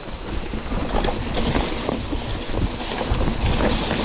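Wind rushing over the microphone of a mountain bike descending a muddy downhill trail at speed. Tyre noise runs under it, with frequent small rattles and clicks from the bike over rough ground.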